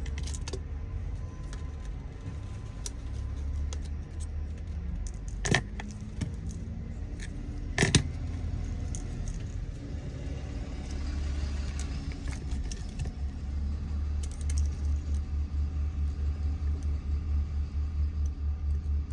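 Small sharp clicks and taps of phone parts and tools being handled, two louder ones about five and a half and eight seconds in, over a steady low hum that turns into a pulsing low thrum near the end.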